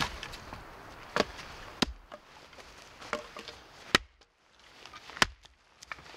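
Pine wood being broken up by hand: a handful of sharp wooden cracks and knocks at uneven intervals.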